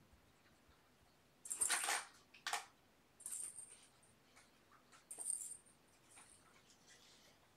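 Four short metallic jingling rattles, the first the loudest, with fainter light clicks between them.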